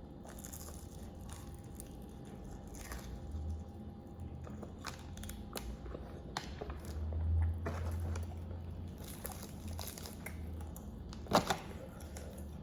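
Close-up eating sounds: chewing and biting into fried chicken, with scattered small crunches and clicks and a sharper one near the end.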